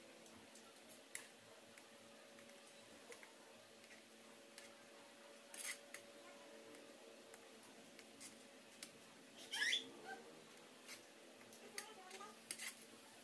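Metal spoon scraping and clinking against a ceramic bowl while stirring a thick chocolate mixture, in scattered faint clicks over a steady low hum. About ten seconds in there is one louder, brief rising squeak.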